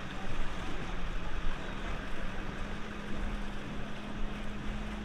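Motorboat engine idling at low speed: a steady low hum that rises slightly in pitch about two seconds in and then holds.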